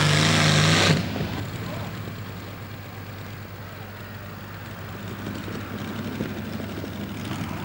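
Supercharged Allison V12 aircraft engine of a pulling tractor running at full power. It is loud for about the first second, then drops to a lower, steadier running sound.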